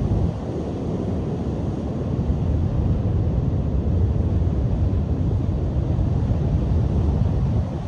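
Strong wind buffeting the microphone over waves breaking on the shore, a deep steady rumble. It swells about two seconds in and eases just before the end.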